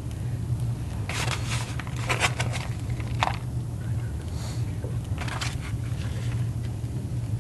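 Shredded cheese being sprinkled by hand from a disposable bowl onto a casserole: a few short rustling scrapes of fingers and cheese against the bowl, over a steady low hum.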